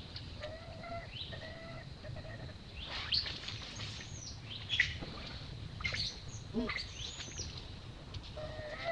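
Newborn macaque crying: short, steady-pitched whimpers near the start and end, and sharp, shrill squeals in the middle, the loudest about five seconds in.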